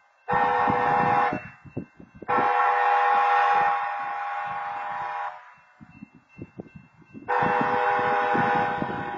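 Train horn sounding blasts of the grade-crossing warning: a short blast of about a second just after the start, a long blast of about three seconds from two seconds in, and another long blast starting near the end. Each blast is a chord of several steady tones.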